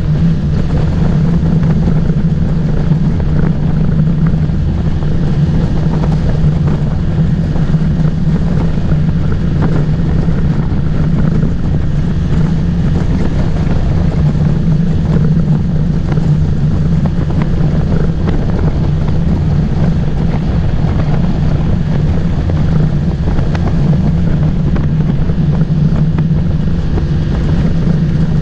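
Motorboat engine running steadily under way, a constant low drone, with wind buffeting the microphone.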